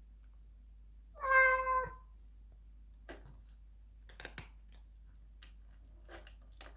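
A domestic cat meows once, a single call lasting under a second about a second in. Several faint short clicks follow.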